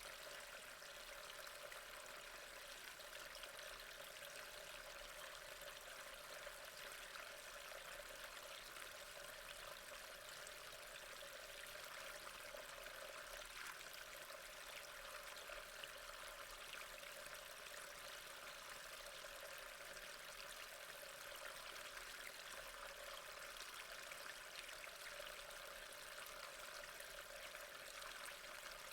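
Soft, steady rain: an even hiss of falling drops that does not change.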